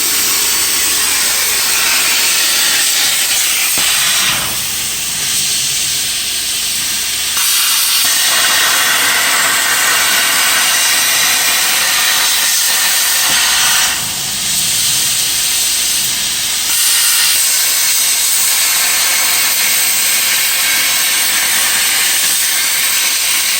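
Plasma cutter torch cutting steel on a CNC table: a loud, steady hiss of the arc and compressed air. The tone changes and the level drops slightly twice, about four and fourteen seconds in, for a few seconds each.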